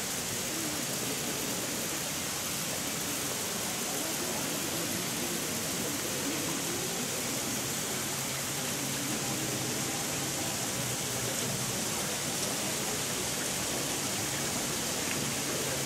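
Sprinkler nozzles spraying columns of water mist, a steady, even hiss of spray with water falling onto wet paving.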